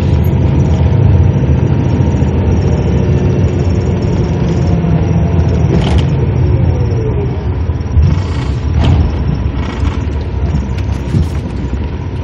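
Bus engine and road noise heard from inside the passenger cabin: a steady low rumble, with a few brief knocks around six, eight and nine seconds in.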